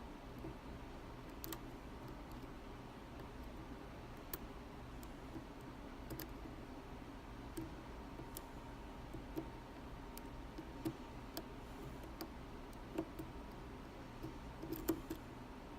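Faint, irregular clicks and ticks of a curved flag pick working inside an Abus D10 dimple lock's keyway and pins, coming more often near the end, over a low steady hum.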